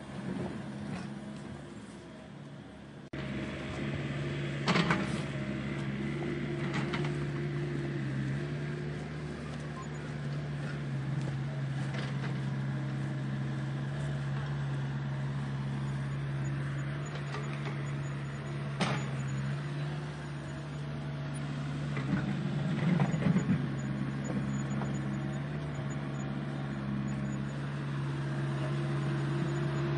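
Steady mechanical hum of a radio-controlled construction machine's motor, starting abruptly about three seconds in, with occasional sharp clicks and knocks.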